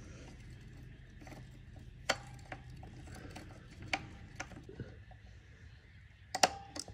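Metal parts clicking and knocking as a foot peg and its bolt are fitted to a Sur-Ron electric dirt bike's peg mount: scattered light taps, with a few sharper clanks near the end.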